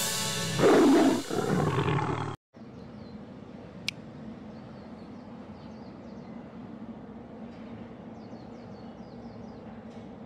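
A lion-style roar sound effect from a studio-logo intro, lasting about two seconds and cutting off abruptly. It is followed by faint outdoor ambience with small bird chirps later on.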